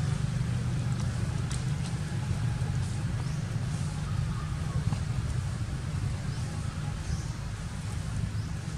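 A steady low rumble, like a running engine or traffic, under a few faint, short high squeaks that fall in pitch.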